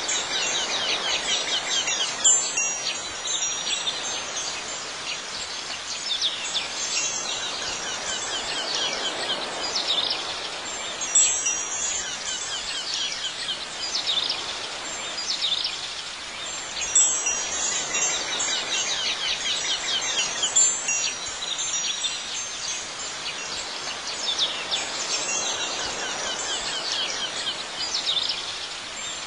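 Wind chimes tinkling in clusters every few seconds, with a soft steady wash beneath.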